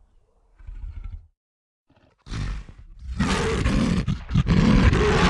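Animal roar sound effect: faint low growls, a short pause, then a short harsh roar and a long, loud rasping roar that breaks briefly in the middle.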